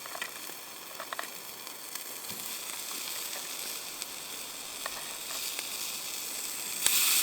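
Sausages sizzling on a grill over the wood fire of a Firebox stove, with a few light clicks. The sizzling gets louder near the end.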